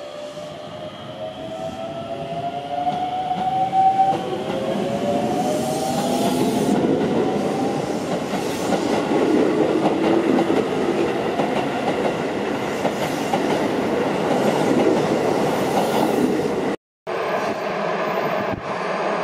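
Hokuso Railway electric commuter train pulling out of the station. Its motor whine climbs in pitch over the first several seconds as it gathers speed, then gives way to a heavy rumble of wheels clattering past close by. The sound cuts out abruptly near the end and gives way to a steadier, more distant rumble.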